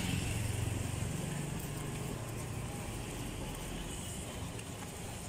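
Street traffic: a motor vehicle's low engine rumble that fades over the first two seconds, leaving a steady background traffic hum.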